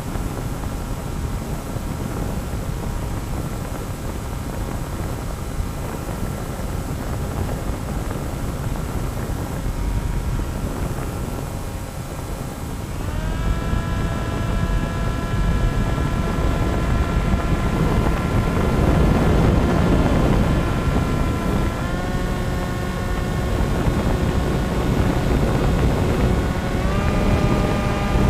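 Radio-controlled plane's motor and propeller heard from on board in flight: a steady whine of several tones over wind rush on the microphone. The pitch steps up sharply about halfway through as the throttle is opened, rises slightly again a little later, and steps up once more near the end.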